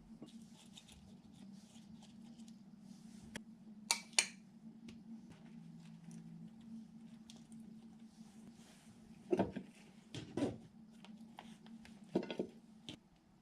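Light handling sounds while burgers are put together by hand: scattered soft clicks and rustles, two sharp clicks about four seconds in, and a few brief scrapes or rustles near the end, over a steady low hum.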